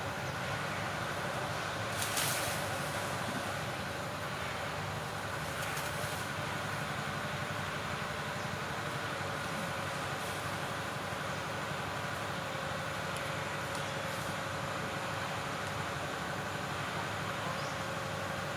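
Steady outdoor background drone and hiss with a constant hum, and one brief rustle about two seconds in.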